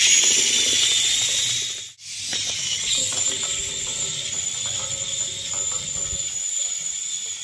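Small homemade DC gear motor running at speed with a high, steady whine. The sound cuts out briefly about two seconds in and then picks up again.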